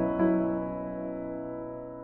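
Slow, gentle piano background music: a chord is struck just after the start and then left to fade away.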